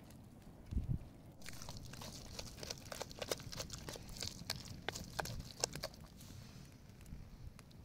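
Hands squeezing and kneading a wet vegetable-and-herb mash in a plastic bowl: a dense run of soft squelches and crackly squishes, after a low thump about a second in.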